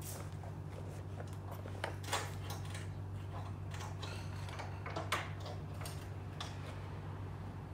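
Scattered light clicks and taps of hand work on a sliding door frame, with two sharper knocks about two and five seconds in, over a steady low hum.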